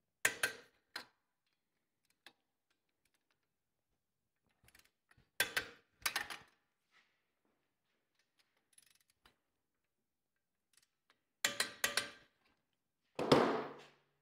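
Torque wrench ratcheting and clicking in three short bursts, each a few quick metallic clicks, as the three 13 mm unit-bearing retaining bolts are torqued to 75 ft-lb; a louder metal clunk near the end.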